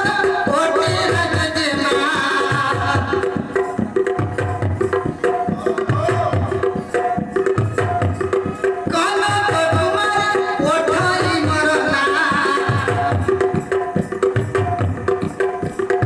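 Indian folk dance music: hand drums keep a steady beat under a melody line that fades back for a few seconds and returns.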